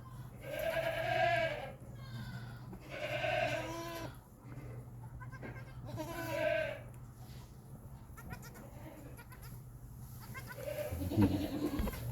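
Goat bleating three times, each call rising and falling in pitch, a few seconds apart.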